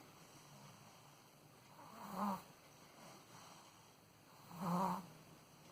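A 13-month-old baby snoring in sleep: two short snores, about two and a half seconds apart.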